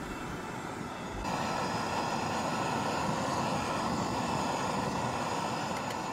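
Gas canister camping stove burner hissing steadily under an aluminium kettle as the coffee water heats, the hiss growing louder about a second in.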